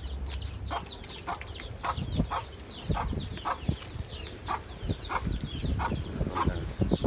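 Chickens clucking over and over, with short high chirps throughout, while a wood fire under the pot crackles with sharp clicks.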